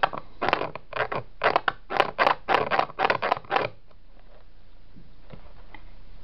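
A pencil scratching in quick, repeated short strokes along a ruler on a hard plastic can lid, about ten strokes that stop just before four seconds in, followed by a few faint ticks.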